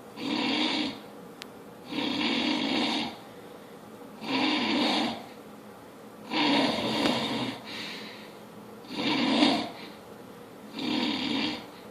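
A man snoring loudly and rhythmically: six snores of about a second each, one roughly every two seconds, the fourth trailing off into a shorter, softer one.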